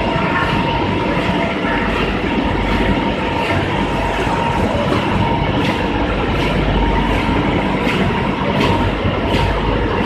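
UV printer running, with a steady machine hum and a regular clack about every two-thirds of a second as it works.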